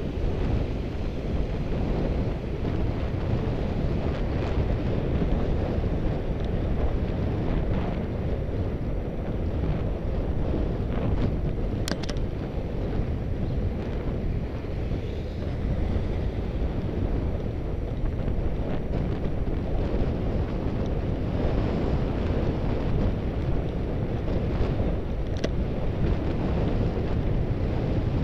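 Wind rushing over the microphone of a bike-mounted camera while riding, a steady low rumble, with a sharp click about twelve seconds in and a fainter one near the end.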